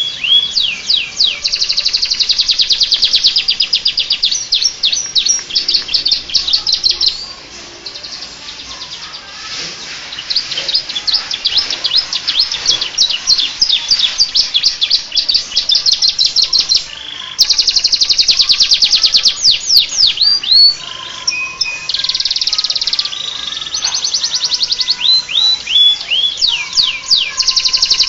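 Domestic canary singing long, fast trills and runs of downward-sweeping whistled notes, with a brief lull about a quarter of the way in. It is a canary whose song is filled with phrases copied from the bar-winged prinia (ciblek).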